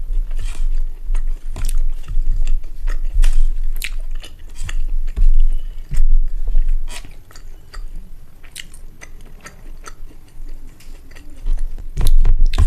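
Close-miked chewing of rice and egg curry, with a run of short, wet smacking clicks. It quietens for a few seconds past the middle and gets loud again near the end.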